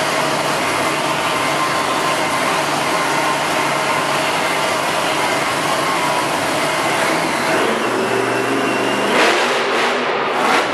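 Monster truck engine running loud and revving in an arena, with a sudden louder burst about nine seconds in and another near the end.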